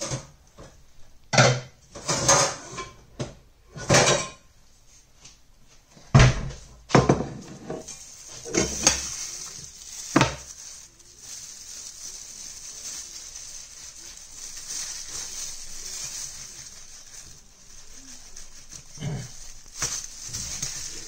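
Knocks and clatter of a stainless steel stockpot and a large slab of raw pork being handled on a wooden cutting board. The loudest is a heavy thump about six seconds in. In the second half a steady high hiss takes over.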